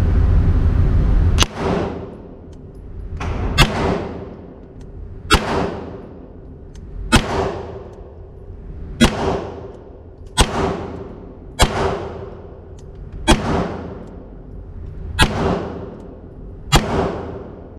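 A Canik TP9SFX 9 mm pistol firing ten single shots at a slow, steady pace, about one every one and a half to two seconds, each shot echoing in the indoor range lane.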